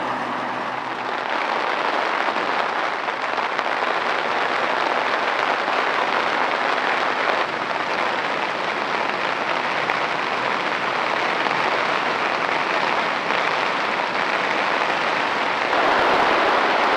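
Rain falling steadily, an even hiss of drops that gets a little louder about a second before the end.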